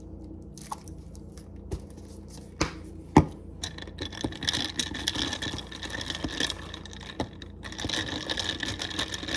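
A few knocks and clinks of kitchenware while a coffee drink is made, the loudest about three seconds in. Then a small motor whirs steadily for several seconds, with a brief stop partway through.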